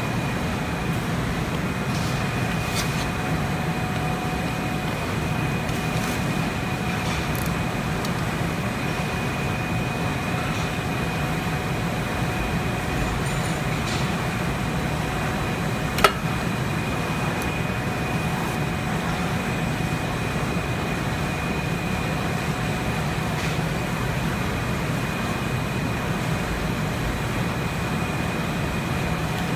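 Steady drone of factory machinery running, a low hum with a thin, constant high whine over it, and a single sharp click about halfway through.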